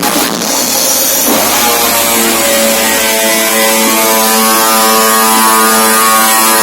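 Loud electronic dance music played through a DJ sound system. The beat drops out about a second in and a single long note is held at a steady pitch until near the end.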